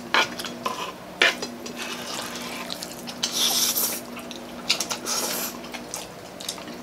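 Close-up eating sounds: wet chewing and lip smacks with a few sharp clicks, and slurps of palabok rice noodles about three seconds in and again about five seconds in. A faint steady hum runs underneath.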